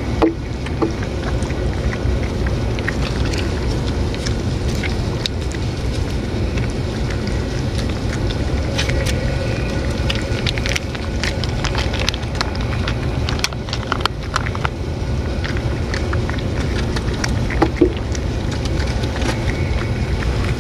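Two cats eating wet food from a metal bowl up close: scattered small clicks of chewing and licking over a steady low rumble.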